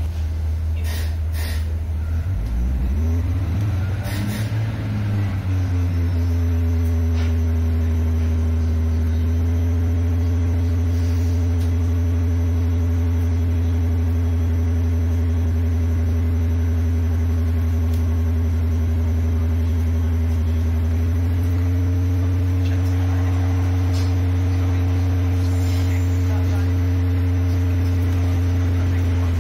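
Class 142 Pacer railbus's underfloor diesel engine revving up as the unit pulls away, then running on under power as a loud, steady low drone with a humming whine over it, heard from inside the carriage. The pitch steps up slightly about two-thirds of the way through.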